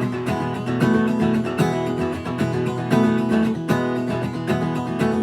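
Strummed acoustic guitar playing chords in a steady rhythm, without singing.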